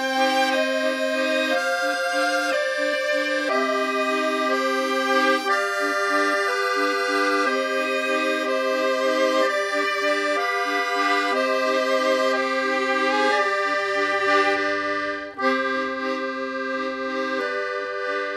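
Background music: a slow melody over held chords, with a brief drop about fifteen seconds in before it carries on.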